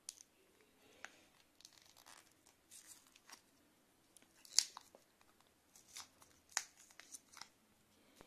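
A small card-and-plastic packet, the packaging of the meter's battery cell, being torn and peeled open by hand. It makes a string of short crackling rips and clicks, the loudest about halfway through.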